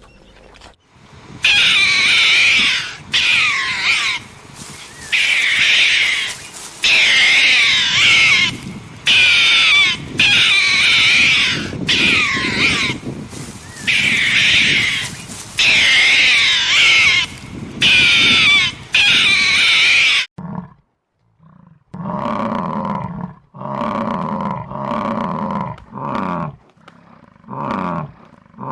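Animal calls: a long run of loud, high-pitched calls about a second each with short gaps, then, after a sudden break, lower-pitched calls in shorter bursts.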